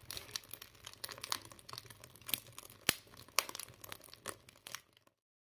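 Freshly lit wood fire in a stove firebox crackling, with many irregular sharp pops and snaps over a faint hiss. The sound cuts off suddenly about five seconds in.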